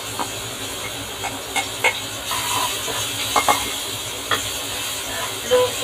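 Chopped vegetables sizzling in hot oil in a stainless-steel wok, with a spatula scraping and clicking against a metal bowl and the pan as they are tipped in and stirred.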